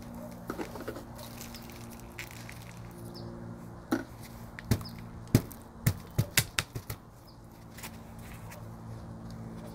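Handling sounds from repotting a succulent in a ceramic pot: a run of sharp hard taps and clicks, about eight in three seconds near the middle, over a steady low hum.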